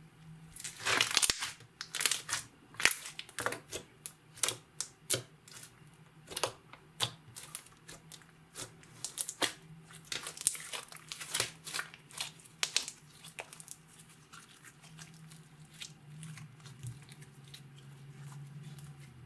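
Clear slime being worked by hand with makeup mixed in, giving sharp, irregular sticky crackles and pops, several a second, thinning out near the end.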